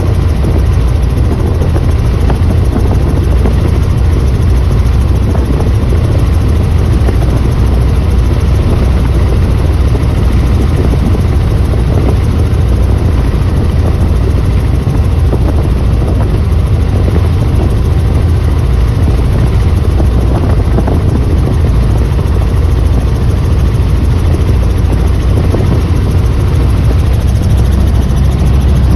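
Helicopter rotor and engine noise in flight, loud and steady, with a heavy low rumble that never lets up.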